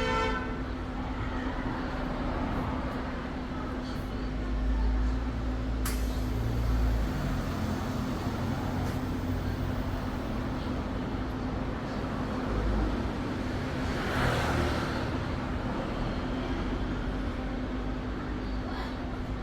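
Car engine idling with a steady hum, as during an air-conditioning check of a car whose refrigerant has all leaked out. A sharp click comes about six seconds in and a brief hiss about fourteen seconds in.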